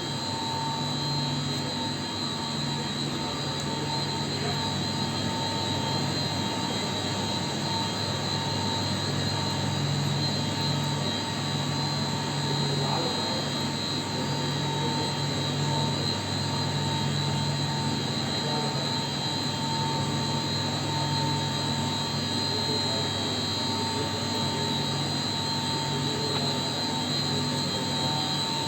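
Water-cooled chiller plant machinery running: a steady, even drone with a low hum and constant high-pitched tones, with no change throughout.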